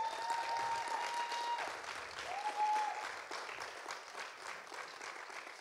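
Audience applauding, with two long, high-pitched held cheers over the clapping in the first three seconds. The applause fades toward the end.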